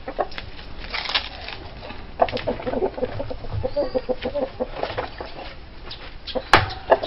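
Chickens clucking, with a quick run of short clucks in the middle. A few sharp knocks come through, the loudest near the end.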